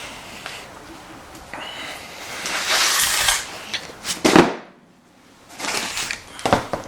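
Rustling and handling noises as car floor mats are put in, with a sharp thump about four seconds in.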